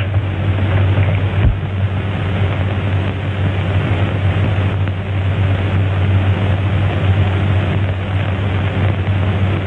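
Steady hiss with a low hum from a worn 1930s film soundtrack, with a faint click about a second and a half in; no speech or music.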